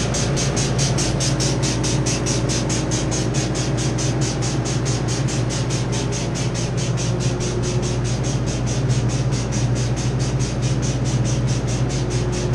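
Steady mechanical hum of running refrigeration machinery, with a rapid, even ticking about four times a second over it.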